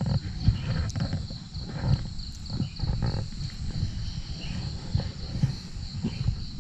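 Insects chirping in a steady, evenly repeating high pulse, under a louder irregular low rumble.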